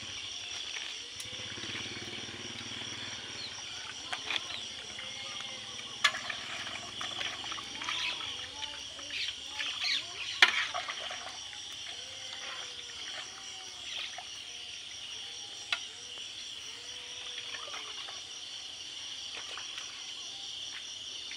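Steady chorus of insects, with short faint calls scattered through it. A few sharp knocks stand out, the loudest about ten seconds in.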